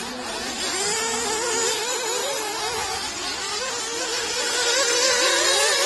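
Small nitro engines of 1/8-scale off-road RC buggies racing, their high-pitched whine wavering up and down as the cars accelerate and lift off around the track.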